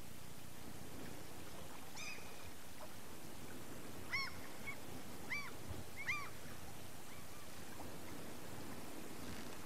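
Four short honking bird calls, like a goose or duck, about two, four, five and six seconds in, over a steady hiss from the old VHS tape.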